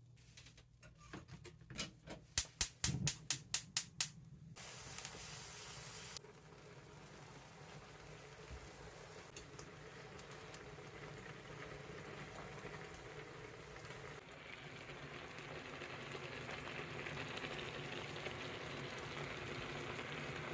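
A gas stove's igniter clicks rapidly, about nine times, followed by a short hiss as the burner lights. Then the foil pan of broth heats on the flame with a steady simmering noise that slowly builds as it comes toward the boil.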